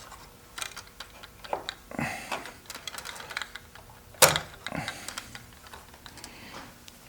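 Hands and tools working electrical wire at a switch box: irregular small clicks, taps and rustles as the ground wire is looped in, with one sharp click about four seconds in.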